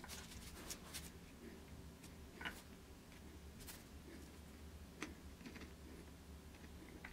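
Near silence: a low steady hum with faint, irregular ticks and light clicks as a soldering iron tip is set against and moved between the solder joints of a relay's circuit board to reflow them.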